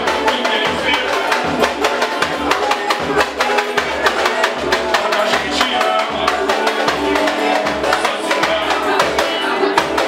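A live band playing an upbeat song, with a steady bass beat and busy percussion.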